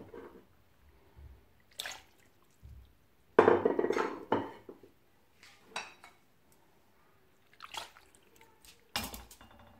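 Chopped raw kidney and heart tipped from a ceramic serving dish into a pot of masala-coated liver: a loud wet clatter about three and a half seconds in, with a few shorter clinks and splats before and after.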